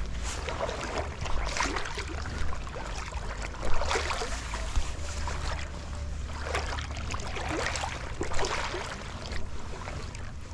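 Legs in chest waders wading through calm, shallow seawater, with a swish and slosh of water at each stride, about one a second.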